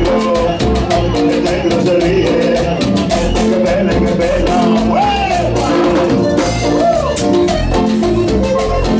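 A live Latin dance band plays with a steady beat. The band has saxophones, bass guitar, timbales and drum kit, accordion, electric guitar, keyboard and a metal scraper, and there are a few sliding notes about halfway through.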